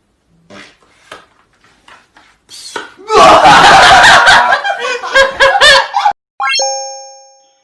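Loud laughter for about three seconds that stops abruptly, followed by a quick rising whoosh and a bell-like ding sound effect that rings out and fades.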